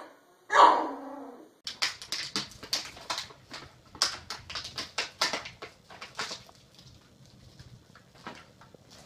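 A puppy gives one loud bark at a plastic water bottle. Then a run of quick, sharp clicks and crackles lasts a few seconds as a puppy knocks a plastic water bottle about, and they thin out to a few near the end.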